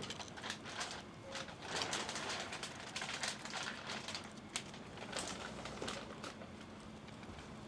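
Birds pecking at food on the ground: irregular light taps and clicks.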